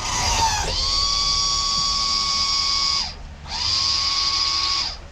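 Electric hydraulic pump motor of a 1968 Oldsmobile Cutlass convertible's power top whining as it drives the top-down cycle through the new hydraulic cylinders and lines. It runs for about three seconds, stops briefly, then runs again for about a second and a half, winding up in pitch at each start and down at each stop.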